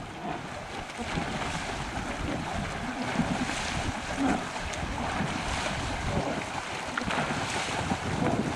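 Wind buffeting the camcorder microphone over a steady rush of harbour water.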